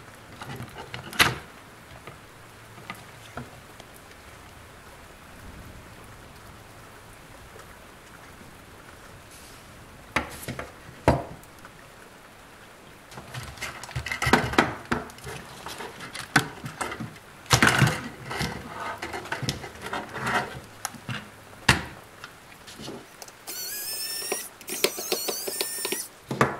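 Hard plastic parts of a Buzz Lightyear action figure clicking and knocking as they are handled and fitted together, in scattered sharp knocks that come thickest in the middle. A short high-pitched squeaky sound comes near the end.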